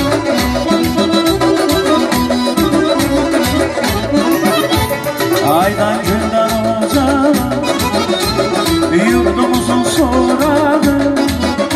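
Live Azerbaijani folk music from a small ensemble: electronic keyboard, accordion and a long-necked lute over a hand drum keeping a steady beat, with a man singing into a microphone, adding wavering ornamented notes from about halfway through.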